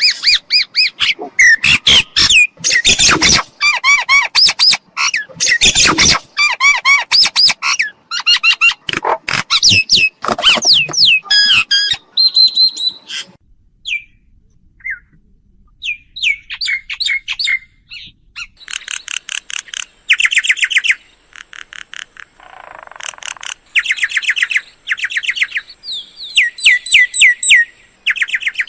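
Mynas calling: loud harsh chattering mixed with sharp clicks for the first dozen seconds, then after a short lull, fast runs of repeated high whistled notes.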